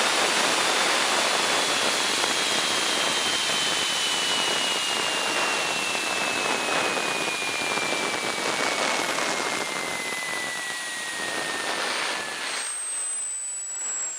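JetCat P-20 model jet turbine running with a steady rushing roar and a high whine that falls steadily in pitch as it spools down. About twelve and a half seconds in the roar drops away sharply, leaving a fainter high whine that is still falling.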